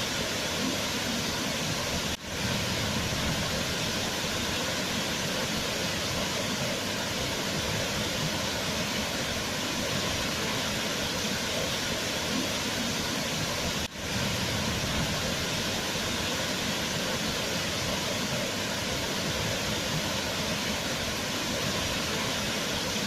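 Waterfall: a steady, even rush of falling water, which dips out for an instant twice, about two seconds in and about fourteen seconds in.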